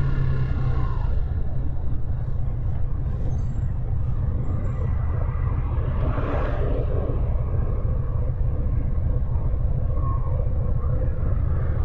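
Motorcycle engine easing off within the first second, then idling with a steady low rumble while stopped in traffic. A short rushing hiss comes about halfway through.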